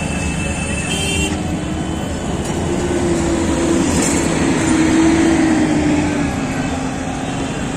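Steady road-traffic noise of engines and tyres on a busy flyover, with one vehicle passing close, its engine tone swelling about halfway through and fading near the end.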